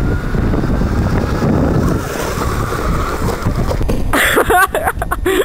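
Wind rumbling on the microphone for about four seconds; then, as the rider falls off the cooler, excited voices yell out.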